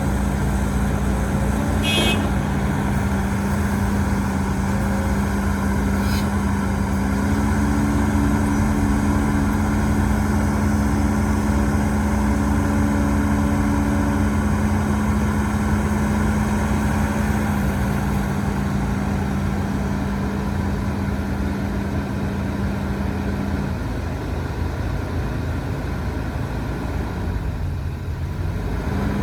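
Heavy diesel engine of earthmoving machinery running steadily at high revs. The revs drop briefly near the end and then pick back up. Two sharp metallic clanks come in the first few seconds.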